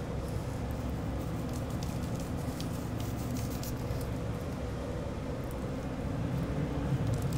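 A steady low background rumble, with faint light ticks of salt and pepper being shaken onto a raw pork loin.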